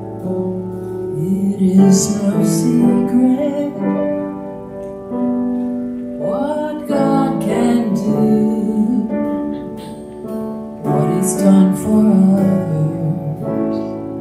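Grand piano playing a slow piece of held chords that change every second or so, with a few light percussion strokes over it.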